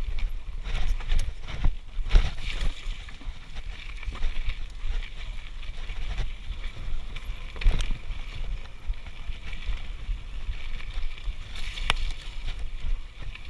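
Mountain bike riding over rocky then grassy singletrack: steady wind rumble on the action camera's microphone, tyre noise and the bike rattling, with several sharp knocks over bumps.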